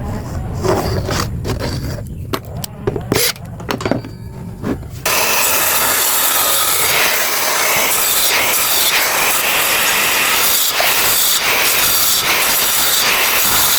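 Woodworking tool noise: a low hum with scattered knocks and taps, then an abrupt switch about five seconds in to a steady, loud hissing rasp that runs on.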